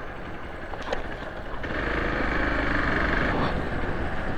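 Motor vehicle running with road and wind noise, getting louder for about two seconds from around a second and a half in.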